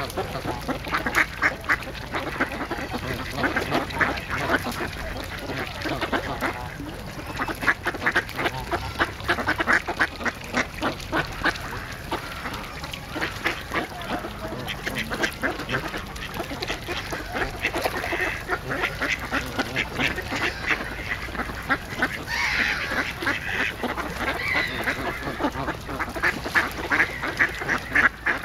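A flock of mallards quacking continuously in rapid runs of short calls.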